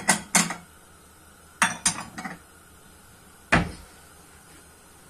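Spoon and dishware clinking: a handful of sharp metal-on-dish knocks with short ringing, the loudest about three and a half seconds in.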